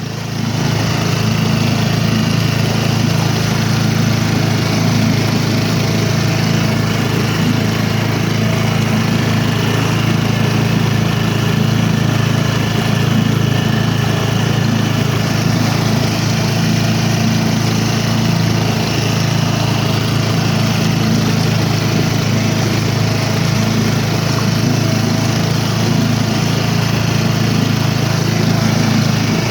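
A motor running steadily and unchanging, a continuous low hum with a few held tones over it.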